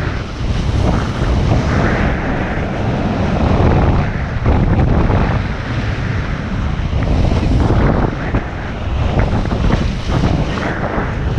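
Wind buffeting an action camera's microphone in gusts, over the rush and spray of water past the hulls of a Hobie 16 catamaran sailing fast on a reach.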